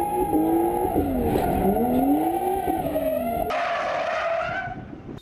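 Drift car sliding sideways with its tyres squealing in a steady high note while the engine revs rise and fall underneath. The sound fades out near the end.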